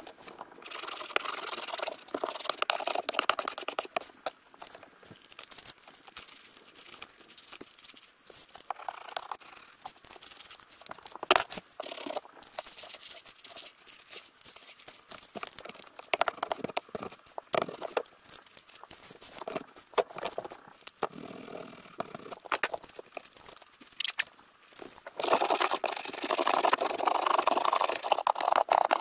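Large wall panels being handled and pushed into place against the walls of a small shower stall: scraping and crinkling rustles near the start and again near the end, with scattered knocks and taps and one sharper knock a little before the middle.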